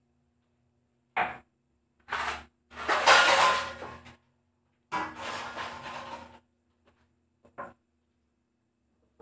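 Dishes being washed by hand at a sink. There is a short knock about a second in, then three longer noisy bursts of rinsing and scrubbing, the loudest around three seconds in, and a last small knock near the end.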